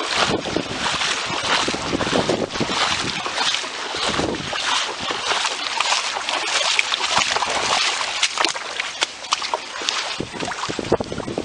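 Floodwater rushing and splashing out through the breached levee of Lake Olympia, a loud, churning hiss that rises and falls.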